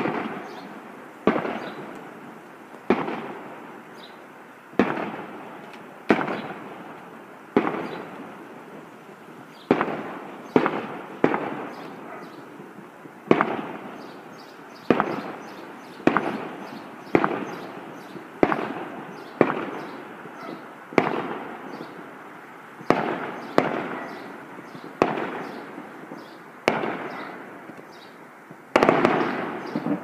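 Firecrackers going off one after another, about twenty sharp bangs at irregular intervals of one to two seconds, each echoing briefly before the next.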